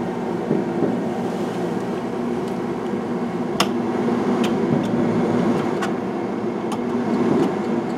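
Fireworks going off at a distance: scattered sharp cracks, the strongest about three and a half seconds in. Under them runs a steady low mechanical hum.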